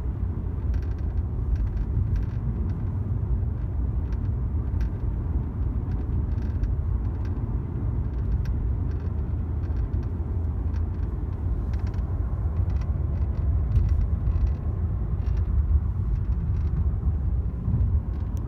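Road rumble inside a moving 2021 Mercedes-Benz CLA 250's cabin, with irregular light rattling clicks from the dashboard, seemingly from the glove compartment area: an interior trim rattle in a brand-new car. The sound cuts off suddenly near the end.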